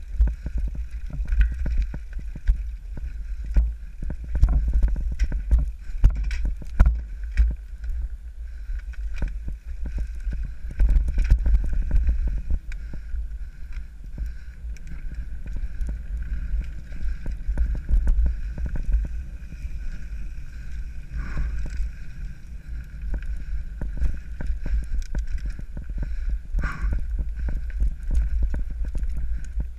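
Mountain bike riding down rocky singletrack: a steady low rumble of wind and ground noise on the bike-mounted camera's microphone, with frequent clicks and knocks as the tyres and bike rattle over stones.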